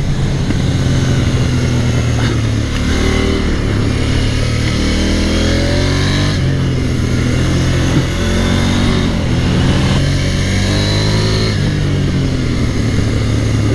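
KTM 890 Duke R's parallel-twin engine revving hard on a track lap, its pitch climbing and dropping several times as the rider shifts and rolls on and off the throttle through the corners.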